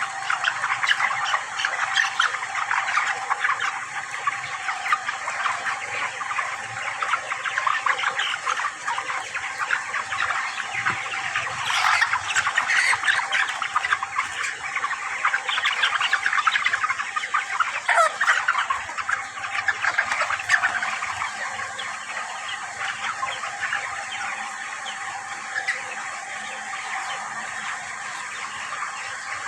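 A large flock of broiler chickens calling all at once in a dense, continuous chatter of cheeps and clucks. It swells around the middle and eases off over the last third.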